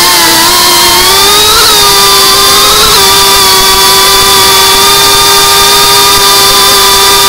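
FPV quadcopter's brushless motors and propellers whining loudly, heard from the drone's own onboard camera over a rush of air. The pitch rises slightly twice in the first three seconds, then holds steady.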